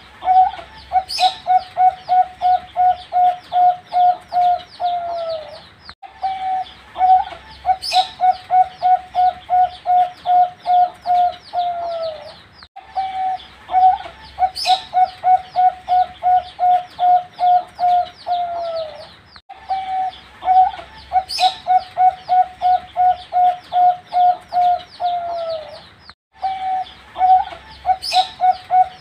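A young perkutut (zebra dove) singing its cooing phrase over and over, about every six and a half seconds. Each phrase opens with a held note, runs into a quick even string of pulsed coos, and ends on a falling note, with a short sharp high sound near its start and faint high chirps behind.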